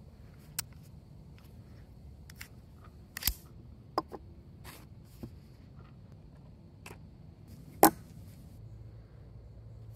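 Mauser HSc pistol and its steel magazine being handled: scattered sharp metallic clicks and clacks, with the loudest knock near the end as the pistol is laid on a wooden board.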